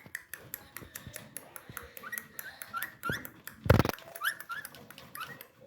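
Pet parrot making short rising squeaks among a run of quick clicks, with one louder harsh burst a little past halfway.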